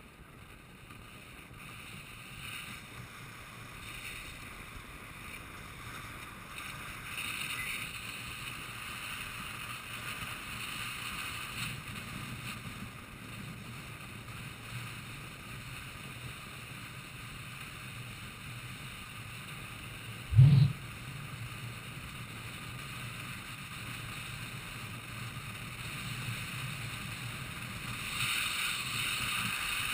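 Wind rushing over an on-board camera's microphone together with the rumble of inline skate wheels on asphalt at downhill racing speed, growing louder over the first few seconds. A single loud thump about two-thirds of the way through.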